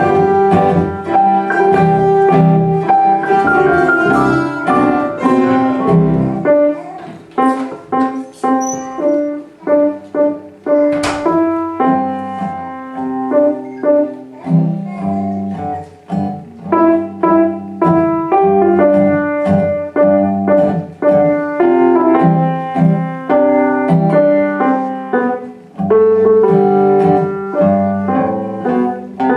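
Live instrumental music played by a student ensemble, with piano prominent. A single sharp knock sounds about eleven seconds in.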